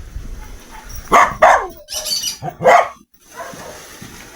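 A dog barking several times in short barks.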